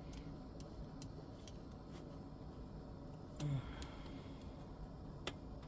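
Scattered light clicks and ticks of small parts being handled during bench repair work, with one sharper click near the end.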